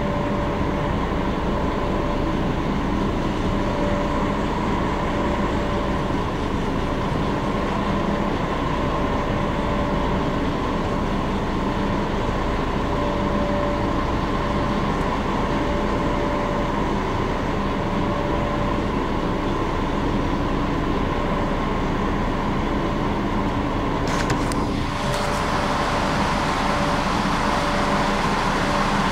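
Lorry's diesel engine running at low speed, heard from inside the cab, as a steady low drone with a few constant tones over it. About 24 s in the sound briefly changes and a hiss is added after that.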